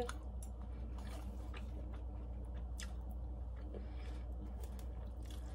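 A person chewing a mouthful of soft food, with a few faint clicks and smacks, over a steady low hum of room noise.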